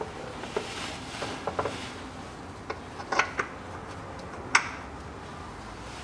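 Scattered light clicks and knocks with some rubbing and rustling: hands handling the new oil filter and working in the engine bay as the filter is lowered into its mounting. The sharpest knock comes about four and a half seconds in.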